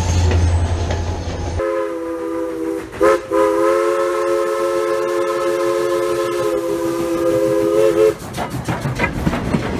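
Live-steam locomotive's chime whistle sounding a multi-note chord, a short blast then a long one, over the rumble and clicking of the train running on the track.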